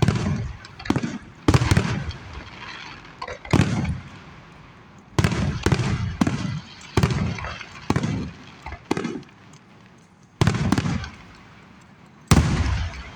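Aerial fireworks exploding in a rapid, irregular series of sharp bangs, each followed by a short rumbling echo; a lull comes about three quarters of the way through before one more loud bang near the end.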